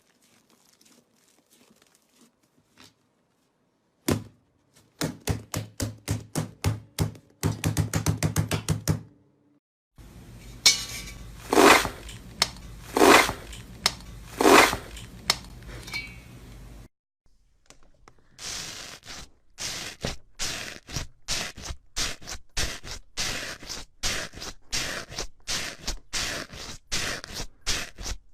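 Slime being squeezed and poked by hand in several short cut-together clips: runs of quick sticky clicks and pops, with three louder squelching swishes in the middle.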